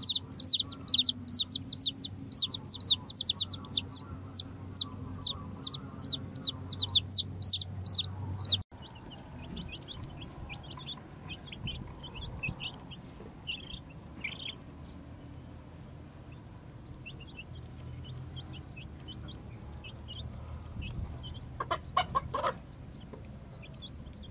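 Newborn chicks peeping. One chick close by gives loud, rapid peeps that each fall in pitch, until a sudden cut about eight seconds in. After that there is fainter peeping from several chicks, and a short lower call a couple of seconds before the end.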